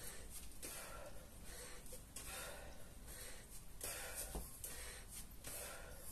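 A man breathing hard from kettlebell-swing exertion, about four heavy breaths, one every second and a half.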